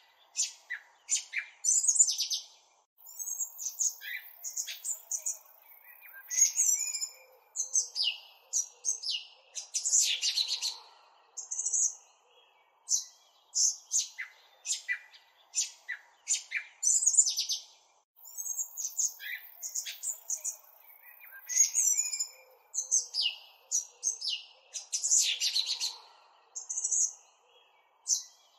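Songbirds chirping and trilling: many short, high calls in quick runs with brief pauses between them, the same sequence of calls recurring about every 15 seconds.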